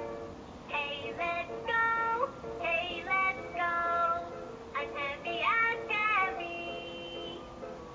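An English children's song playing from a children's electronic sound book: a few accompaniment notes, then a voice starts singing about a second in and carries on over the backing.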